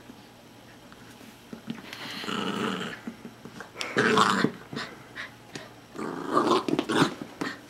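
Corgi puppy growling in excited play, in three bursts: one about two seconds in, a loud short one about four seconds in, and a longer broken spell near the end.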